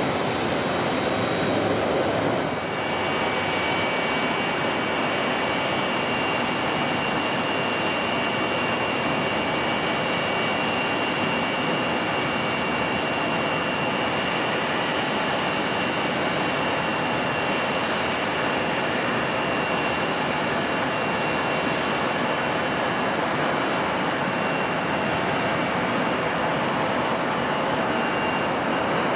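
UPS McDonnell Douglas MD-11 freighter on final approach: its jet engines give a steady rush with a high whine held at an even pitch. For about the first two and a half seconds a Boeing 737's engines on the runway are heard instead, louder and lower.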